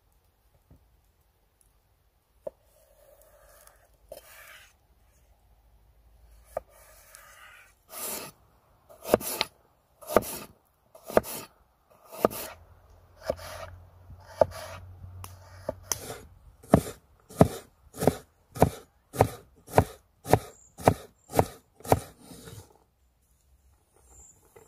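Large kitchen knife cutting fresh ginger root on a wooden cutting board. After a few softer sounds, sharp cuts come about once a second, then quicken to about two a second as the ginger is chopped fine.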